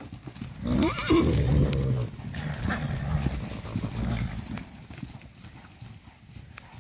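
A herd of Arabian fillies galloping on dry ground, their hoofbeats irregular and fading toward the end. One horse gives a loud whinny about a second in.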